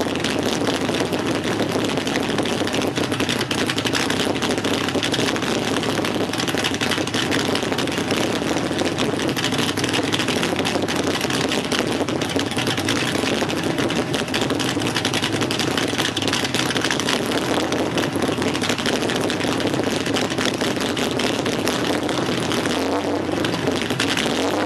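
Car engine with an aftermarket heads-and-cam setup, run without a tune, sounding through true dual exhausts. It runs steadily and loudly, then begins to rise in pitch as it revs up near the end.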